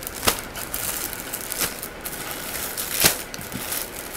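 Clear plastic packaging on folded bedsheet sets crinkling and rustling as the packs are lifted and flipped over, with a few sharp crackles, the loudest about three seconds in.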